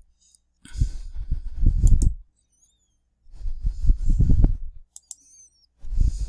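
Rapid clicking from computer input, in three bursts of about a second and a half each.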